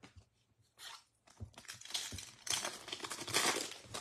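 Foil wrapper of a Topps Chrome baseball card pack crinkling and tearing as it is opened by hand, with cards handled, about a second and a half in and on to the end.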